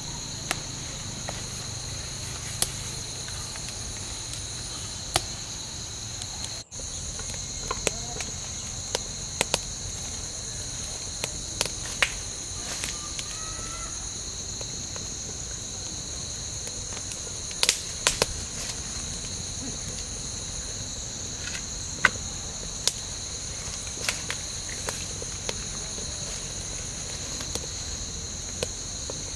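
Steady high chorus of crickets, with scattered sharp pops and crackles from the wood fire burning under the pan.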